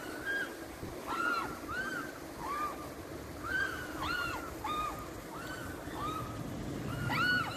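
Mute swan cygnet calling: a run of short whistled peeps, each rising and falling in pitch, about two a second with uneven gaps and the loudest near the end. These are the contact calls a young swan gives when separated from its parents. A steady background hiss runs under the calls.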